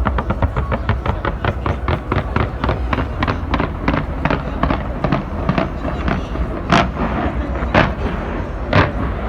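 Fireworks going off in a rapid string of sharp bangs, about six a second at first, thinning out to a few louder single bangs near the end.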